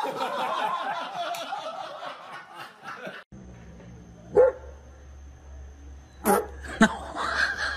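A large dog barking: one bark about halfway through, then two more close together near the end, over a steady low hum. In the first three seconds, before the dog, there is a busy run of high-pitched squealing sounds of unclear source.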